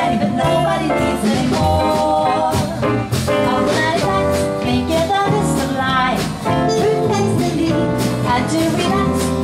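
Live jazz band with two women singing together over upright bass, piano, guitar and percussion keeping a steady beat.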